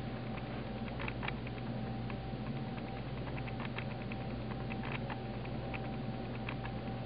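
Faint, irregular light clicks and ticks, some in quick clusters, over a steady low electrical hum and a thin steady tone.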